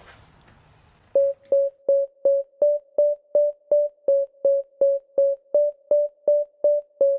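Background electronic music: one short synth note repeating evenly about three times a second, starting about a second in.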